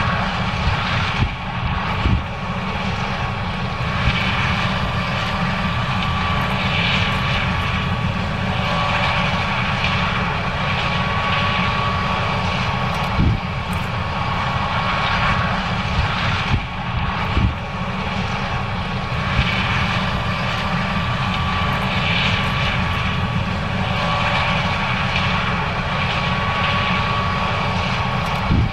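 John Deere S670 combine running while harvesting corn: a steady diesel drone with a high steady whine over it and a few short knocks.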